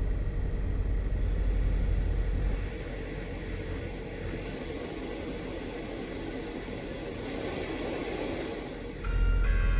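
2017 Jeep Cherokee (KL) fans running with a loud, steady low drone. The drone drops quieter about 2.5 s in, a whooshing swells around 8 s, and the drone comes back loud just before the end.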